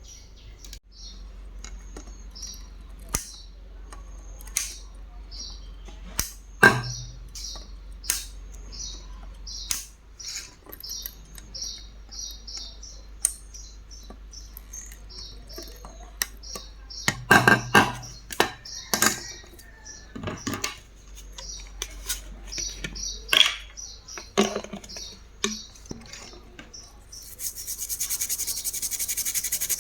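A small bird chirping over and over in short high notes, about two a second, while sharp knocks and clatter of handled objects break in now and then, loudest about a quarter and again about halfway through. Near the end a steady rubbing noise begins.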